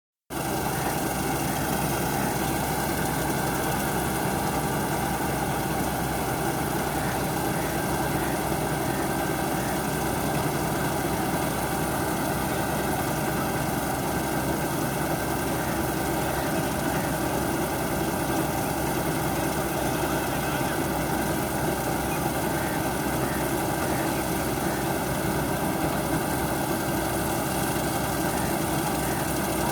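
Kubota rice combine harvester running steadily, a dense, even machine noise that holds the same pitch and level throughout.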